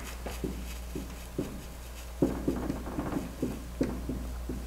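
Dry-erase marker writing on a whiteboard: a string of short, irregular squeaks and taps as letters are stroked out.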